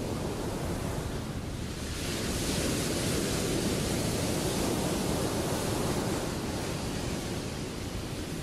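Ocean waves breaking: a steady rush of surf and whitewater that swells louder about two seconds in and eases again near the end.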